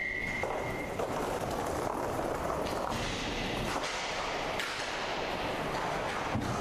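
Inline roller hockey play: skate wheels rolling on the rink floor, with scattered clacks and knocks of sticks and puck. A short steady high tone sounds for under a second at the start.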